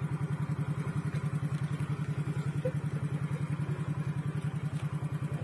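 Small motor scooter engine idling with a steady, rapid pulse.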